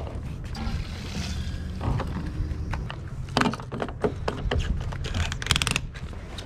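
Clicks and rattles of a fuel nozzle and filler cap being handled while refuelling a jet ski, with a quick run of clicks about five seconds in, over a low steady rumble.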